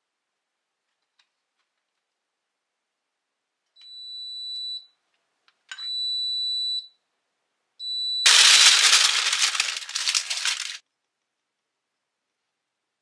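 An air fryer's electronic beeper sounding three long, steady, high beeps about a second apart, followed by a loud rattling rush of noise for about two and a half seconds that stops abruptly.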